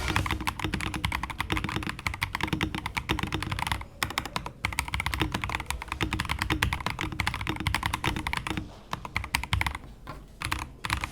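Rapid typing on an AKKO PC75B Plus v2 mechanical keyboard, a fast run of key clicks and clacks. It pauses briefly about four seconds in and thins out with gaps near the end.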